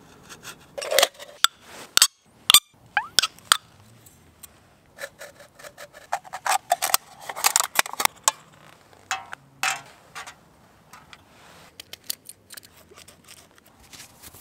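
Knife blade cutting and scraping a thin aluminium drink can, with sharp clicks and crinkling of the metal, busiest in the first ten seconds and fainter ticks and rustles after.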